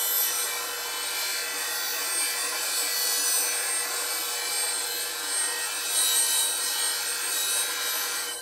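Steel bowl gouge being ground on a bench grinder's CBN wheel: a steady hissing grind over the grinder's hum as the tip is blended round into the other side of the edge. The grinding stops abruptly at the very end, leaving the grinder humming.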